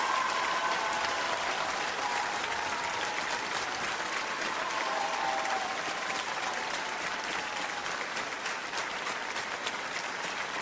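Theatre audience applauding steadily after a stage performance, with single claps standing out more sharply in the second half.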